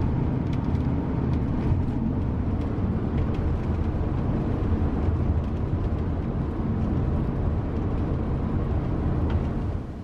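Steady low rumble of road noise inside a moving van's cabin, engine and tyres on the road; it drops away just before the end.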